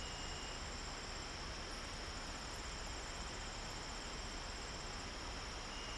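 Crickets trilling steadily in high, continuous bands, with a second, slightly lower-pitched trill heard briefly near the start and again at the end.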